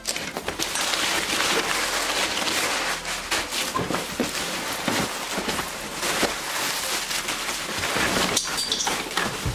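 Plastic wrap crinkling and cardboard rustling as a plastic-wrapped fan is lifted out of its cardboard box: a continuous crackling with many small clicks.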